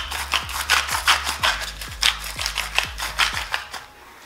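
Hand-held sea salt grinder being twisted, each turn a short crunching rasp, about three a second, stopping near the end.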